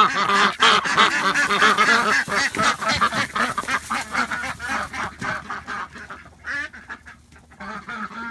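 A flock of ducks quacking rapidly over one another, a loud chorus for about five seconds that then thins out to scattered quacks.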